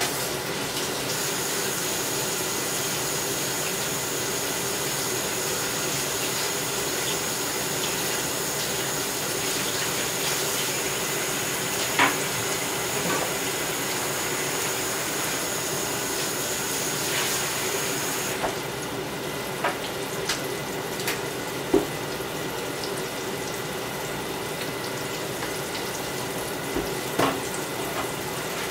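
Kitchen tap running into a sink with a steady rush, shut off abruptly about eighteen seconds in. A few scattered clinks and knocks of dishes follow.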